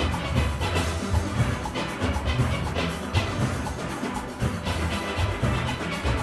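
A full steel orchestra playing: many steelpans sounding together, with bass pans heavy in the low end and a steady rhythmic beat driving the music.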